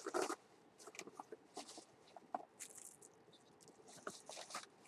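Scattered small clicks, taps and brief rustles of items being handled, with two longer rustling stretches a little after the middle and near the end.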